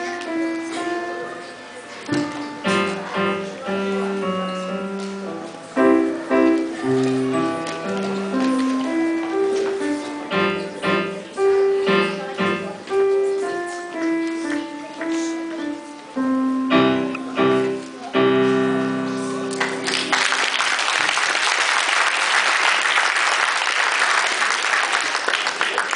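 A child plays a simple waltz on a Roland digital piano, a melody over a low accompaniment, ending on a held chord. Audience applause follows for the last several seconds.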